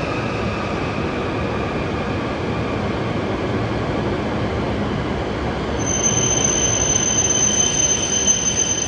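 E7 series Shinkansen running into the station platform: a steady rumble with a faint falling whine as it slows. About six seconds in, a steady high-pitched squeal sets in as it brakes toward a stop.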